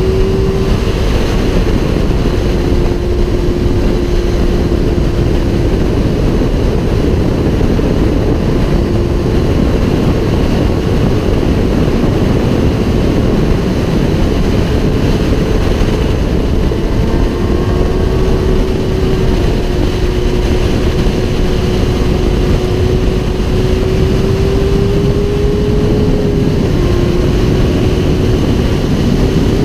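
Sport motorcycle engine at a steady high cruising speed under heavy wind rush on the microphone, its note holding level, creeping up gradually and then dropping back slightly near the end.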